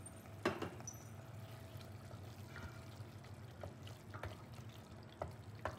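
A wooden spatula stirs thick chilli paste cooking in a stainless steel pot: faint wet stirring with a few scattered light knocks against the pot, over a low steady hum.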